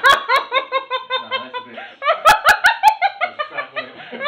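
Several men laughing out loud together in quick, repeated bursts of laughter.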